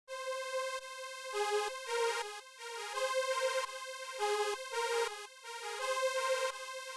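Synthesizer melody playing back: short plucked and keyed notes stepping around a held tone, with no drums or bass. It starts suddenly out of silence.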